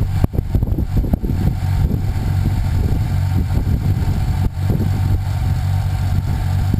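Homemade hydraulic backhoe's engine running steadily with a low drone, with irregular clunks and knocks as the bucket digs a trench.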